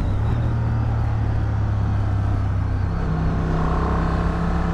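Honda Transalp 750's parallel-twin engine running steadily under way in fourth gear, with air rushing past. About three seconds in the engine note changes, adding a higher tone.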